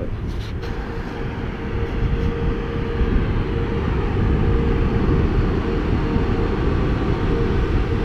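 Wind rushing over a GoPro's microphone and bicycle tyres rumbling on pavement while riding, with a steady hum underneath; the noise slowly grows louder as the bike picks up speed.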